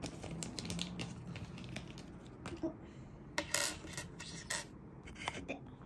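Silver jewellery clicking and tapping on a hard tabletop as a ring and chain necklace are handled and set down: scattered light clicks, with a few louder clinks a little past halfway.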